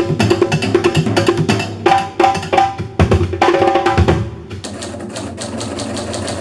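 Fast, dense percussion solo on drums and metal bowls, a rapid run of strikes with some ringing pitches. About four and a half seconds in, it gives way to quieter, evenly spaced strokes on a drum kit.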